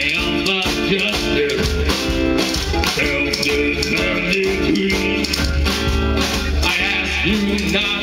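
Live rock band playing a song, with guitar and drums over a heavy bass line.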